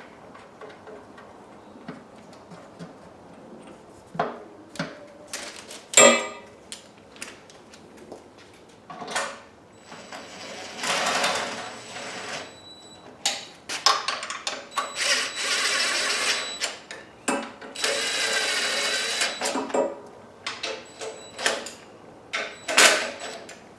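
Power drill-driver running in the bolts on a Honda GX160 water pump's housing, in three main runs of one to two and a half seconds each, with clicks and knocks of tools and parts between them.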